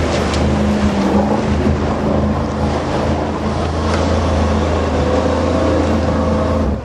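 Ford F-250 diesel pickup's engine running hard at steady revs while the truck ploughs through pond water, with water splashing and wind on the microphone. The engine sound drops off sharply near the end.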